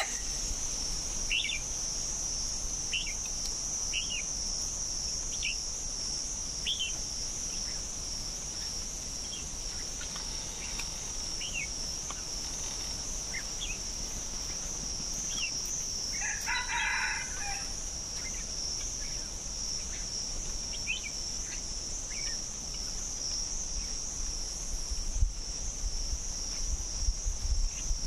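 A steady, high insect drone runs under scattered short bird chirps, and a junglefowl rooster crows once about halfway through.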